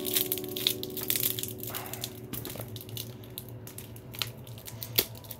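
Clear plastic wrapping crinkling and crackling as it is cut and pulled open with a folding pocket knife, with a sharp click about five seconds in. Soft background music with held chords plays underneath in the first part.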